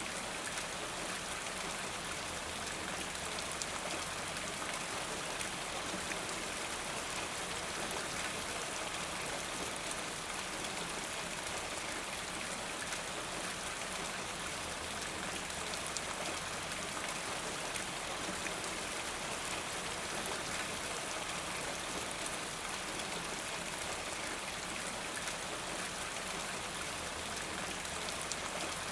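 Steady rainfall with fine, dense drop patter.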